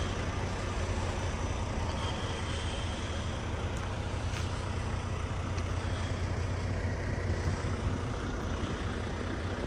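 Semi truck's diesel engine idling, a steady low drone.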